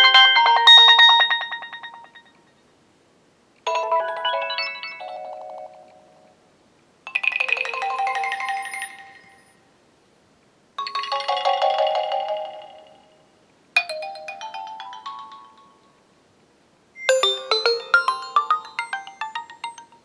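HTC One (M8) ringtones previewed one after another through a Samsung Galaxy Note 3's loudspeaker. Six short chiming melodies each start abruptly and fade out within two to three seconds, with a short pause between them.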